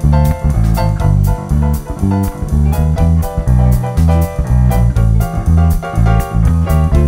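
Squier Classic Vibe '60s Precision Bass, its split single-coil pickup at full volume and full tone, playing a samba groove of punchy low notes. A keyboard plays chords over a steady percussion beat.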